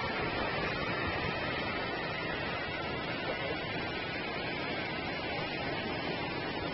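Ocean surf breaking and washing onto a sandy beach: a steady rush of noise with no separate crashes standing out.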